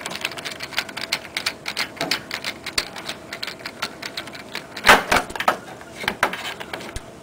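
Screwdriver turning out the mounting screws of a panorama sunroof's front glass-panel motor: a run of quick, irregular light metal clicks, with a louder cluster of clicks about five seconds in.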